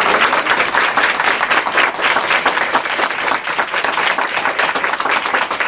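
Audience applauding: many hands clapping together at an even, sustained level.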